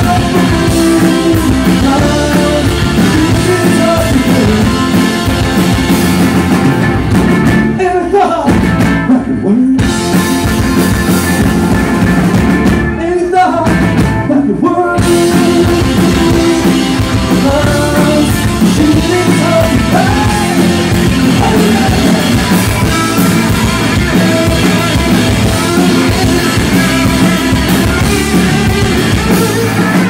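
Rock band playing live, with a male lead vocal over acoustic guitar, electric guitars, keyboard, bass and drum kit. The band briefly thins out twice, about 8 and 13 seconds in.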